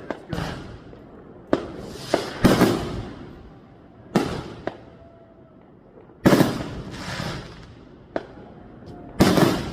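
Fireworks going off: about ten sharp bangs at uneven intervals, each followed by a rumble that fades over a second or so.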